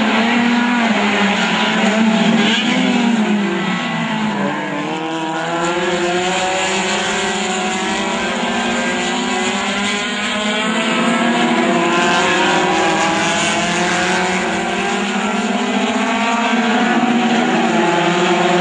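A pack of small four-cylinder touring race cars, mostly Volkswagen Gols, racing together at full throttle. Several engines are heard at once, their pitches rising and falling and overlapping.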